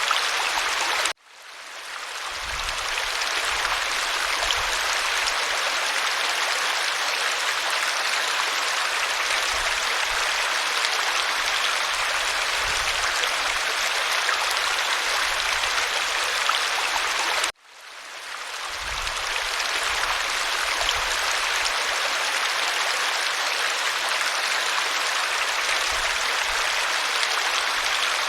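Steady rushing water of a waterfall. It cuts out abruptly twice, about a second in and again some sixteen seconds later, each time fading back in over a couple of seconds.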